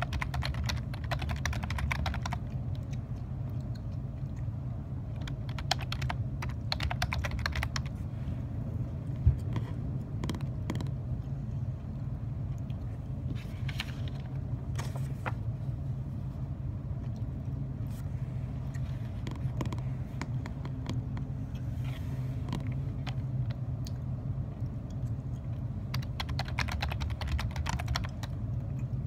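Typing on a computer keyboard in bursts of a couple of seconds, with scattered single key clicks between the bursts, over a steady low hum.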